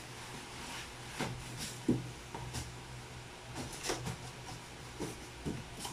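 A cardboard box and a white foam packing insert being handled: scattered scrapes, rubs and light knocks, the sharpest about two seconds in, over a steady low hum.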